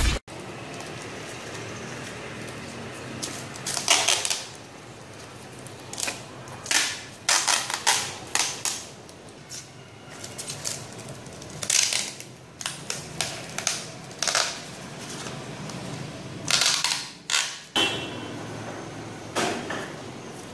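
Irregular clicks, knocks and short scrapes of hands handling a styrofoam block, plastic strip and bottle-cap wheels on a tiled floor. The sounds come singly or in quick clusters, a second or two apart.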